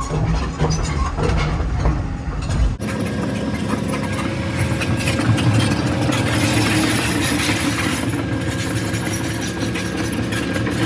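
Heavy diesel engine running, with rattling and clanking over it; about three seconds in the sound cuts abruptly to a steadier, even diesel drone.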